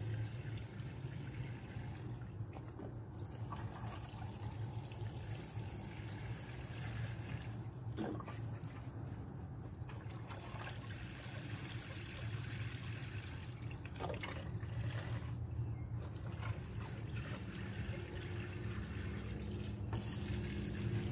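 Water pouring from a watering can into a 5-gallon plastic bucket planter full of dry soil, over a steady low rumble.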